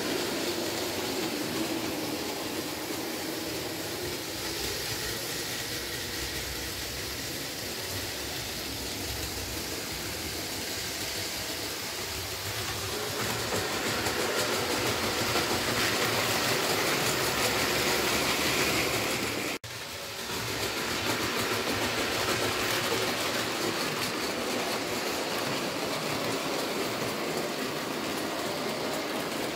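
Märklin H0 model freight train, a long rake of Ommi 51 wagons, rolling over metal track with a steady clatter. It grows louder about halfway through, cuts out for an instant about two-thirds of the way in, then resumes.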